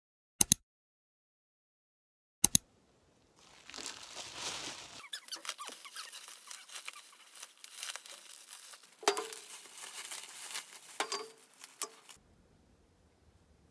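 Two sharp clicks in the first few seconds, then packaging being unwrapped: plastic and paper crinkling and tearing with small knocks. Ceramic rice bowls clink with a short ring as they are set down on the desk, around two-thirds of the way through and again near the end.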